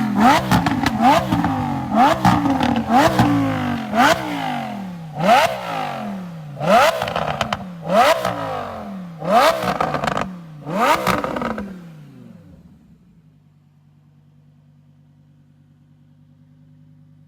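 Lamborghini Huracan Evo's 5.2-litre V10 revved in about ten quick blips, each jumping up sharply and falling away. Several come with a sharp crack. After about 12 seconds it settles to a steady low idle.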